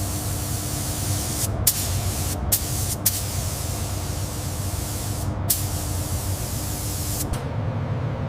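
A pressurised spray hissing in long bursts with brief pauses, stopping about seven seconds in, over a steady low hum.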